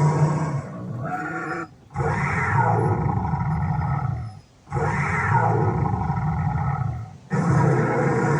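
Loud animal roaring: long roars of about two seconds each with short breaks between them, the same roar repeating almost exactly, like a recording played on a loop.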